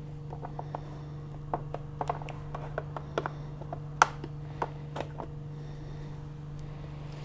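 Light clicks and taps as gloved hands fit and press the black viewing hood onto a miniPCR blueGel electrophoresis unit, with one sharper click about four seconds in, over a steady low hum.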